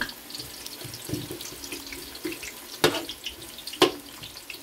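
Sliced onions sizzling in hot oil in a large aluminium pot as a metal spoon stirs them, with two sharp clicks of the spoon against the pot about three and four seconds in.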